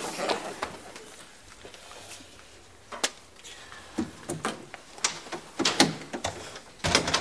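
Scattered knocks and clicks of people moving about a small room, a door among them, with a louder thump near the end.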